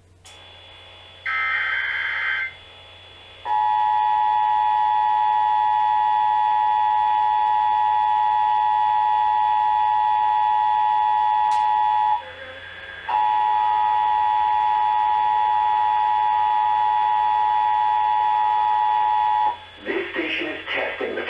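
Emergency Alert System test: a brief burst of warbling digital header data, then the two-tone EAS attention signal held steady, with one short break, for about fifteen seconds before a man's voice starts the test announcement.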